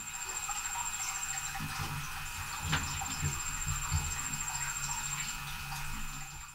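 Quiet room tone dominated by a steady low electrical hum with a faint high-pitched whine over it. A few faint clicks fall around the middle.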